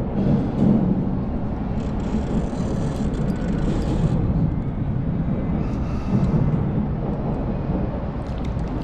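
Wind buffeting the microphone: a steady, unpitched low rumble that wavers in level.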